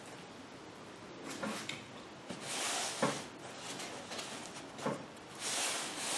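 Pink rigid-foam board sled with a soft cooler bag strapped on, turned by hand on a tabletop: a couple of sliding swishes and a few light knocks.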